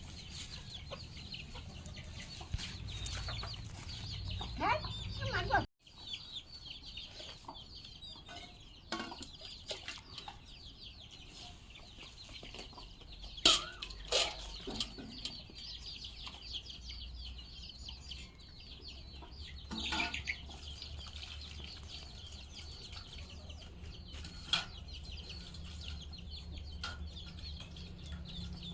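Chickens clucking over a steady high-pitched background hum, with a few scattered sharp clicks and a brief dropout about six seconds in.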